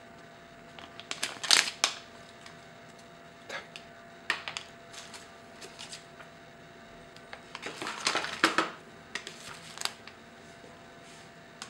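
Clear plastic accessory bags crinkling and rustling as they are handled, in several short bursts, loudest about a second and a half in and again around eight seconds in, with light taps of items being set down.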